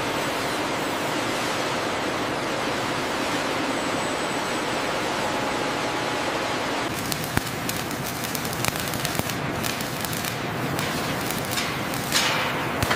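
Steady hiss of factory background noise, with scattered sharp clicks and knocks from about halfway through and a brief louder hiss near the end.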